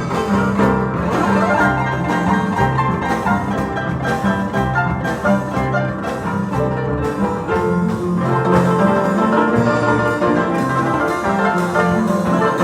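Paraguayan harps playing a lively piece together, with quick plucked notes over a repeating bass line.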